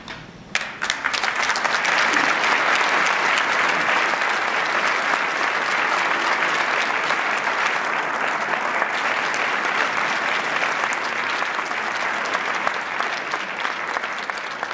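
A crowd applauding: a long round of clapping that starts suddenly about half a second in and eases off a little toward the end.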